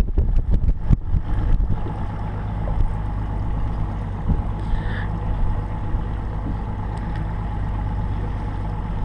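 Fishing boat's outboard engine running steadily at low speed. A flurry of knocks and thumps over the first two seconds is the loudest part.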